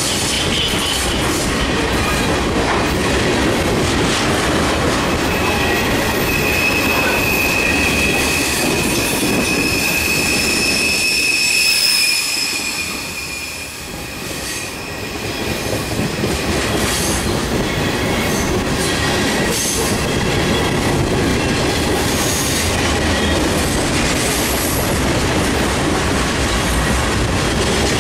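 CSX freight train of open-top hopper cars rolling past close by, steel wheels clattering over the rails. A high wheel squeal holds for several seconds through the middle, and the noise dips briefly about halfway through before the clatter returns.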